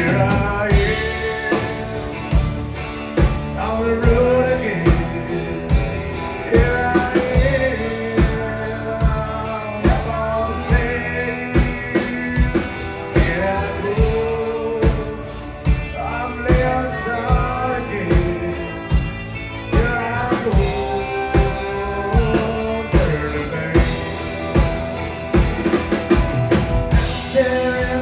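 Live band playing a slow rock song: a man singing lead over acoustic guitar, fiddle, electric bass and a drum kit with a steady beat.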